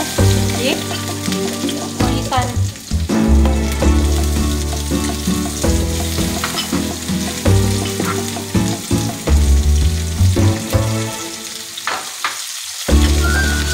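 Chopped aromatics and red and green chillies sizzling in hot oil in a nonstick frying pan, stirred and scraped with a silicone spatula, over background music.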